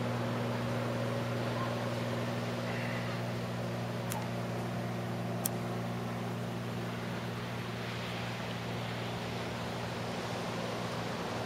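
Steady mechanical hum made of several constant low tones over a soft hiss, with two sharp clicks about four and five and a half seconds in.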